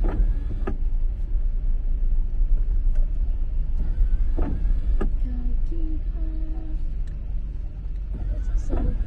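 Car cabin noise while driving on a rain-wet street: a steady low rumble of engine and tyres with a hiss of spray, broken by a few scattered clicks and a brief low hum a little past the middle.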